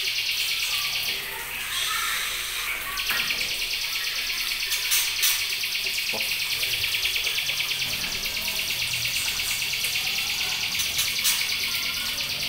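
Caged young white-rumped shamas giving short chirps over a steady, high, rapidly pulsing buzz that briefly drops out early on.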